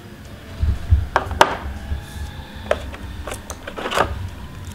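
Hands handling action-camera kit parts. A few low thumps come about a second in, followed by scattered sharp clicks and taps of hard plastic as the clear waterproof case is lifted out of its cardboard tray.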